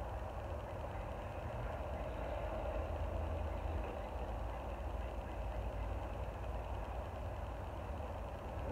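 Steady low rumble of an engine idling, unchanging throughout.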